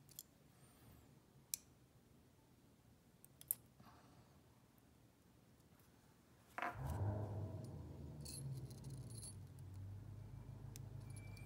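Faint metallic clicks and light taps from tweezers and small hook hardware being handled, with a soft jangle from a small brass jingle bell. A low steady hum comes in suddenly about two-thirds of the way through.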